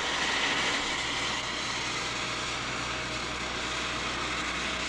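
Steady machinery noise in a steel-pipe fabrication works: a dense, even hiss over a low hum, cut off suddenly near the end.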